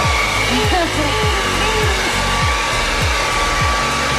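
Blow dryer running steadily, a loud whooshing with a thin whine, while a Shih Tzu puppy barks at it in short yips.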